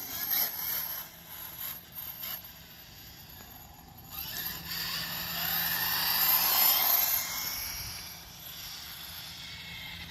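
OFNA Mutilator RC truck being driven, its motor whining up and down in pitch with the throttle and loudest about six to seven seconds in, with a few knocks in the first two seconds.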